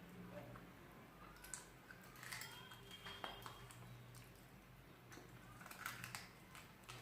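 Faint eating sounds: scattered small clicks and wet smacks of a person chewing rice and curry, over a low steady hum.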